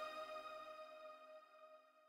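The last chord of the outro music ringing out and fading away, dying to almost nothing about a second in.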